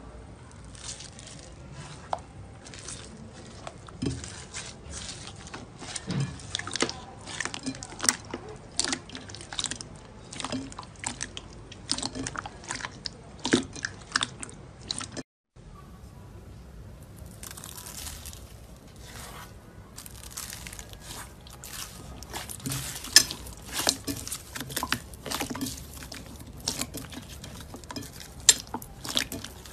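Hands pressing, squishing and kneading slime in a bowl, making a constant stream of small crackles, pops and squelches. About fifteen seconds in it cuts to a different, glossier slime with the same kind of popping.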